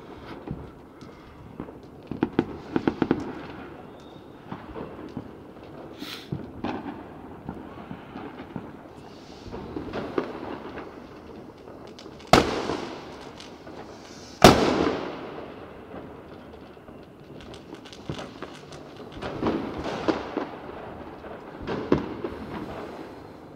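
Fireworks and firecrackers going off around the neighbourhood: a scatter of pops and crackles throughout, with two loud bangs about twelve and fourteen seconds in, each echoing on for a moment.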